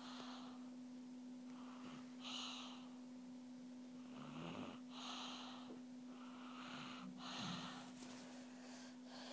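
A sleeping child breathing heavily and slowly, a soft breath every two to three seconds, over a steady low hum.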